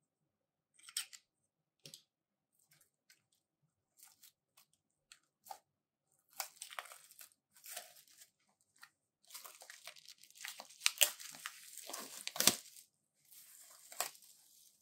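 Plastic shrink wrap being peeled and torn off a boxed Blu-ray set, crinkling and crackling. A few light taps and clicks come first, then the crinkling starts about six seconds in and is loudest around eleven to twelve seconds, before easing off.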